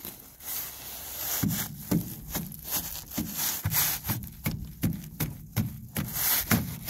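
Channel-lock pliers scraping and chipping frozen-spray ice off an aluminum boat deck: a quick run of short rasping strokes, about two or three a second, starting about a second and a half in.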